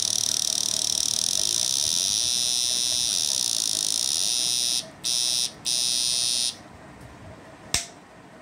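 Electric shock-fishing inverter running under load, giving a loud, steady, high-pitched electrical whine. The whine cuts out about five seconds in, comes back twice briefly, then stops. A single sharp click comes near the end.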